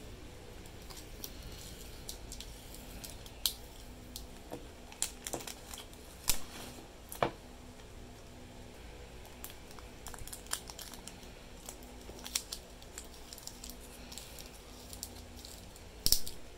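Clear plastic wrap on a resin-and-wood ring casting being cut with a craft knife and picked off by hand: irregular crinkles and small sharp clicks, the loudest a few around six to seven seconds in and one just before the end.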